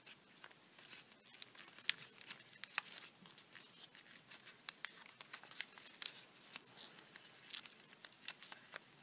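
Origami paper crinkling and crackling faintly as the flaps of a many-layered paper crane are folded and creased by hand, in scattered irregular small clicks with a few sharper ones.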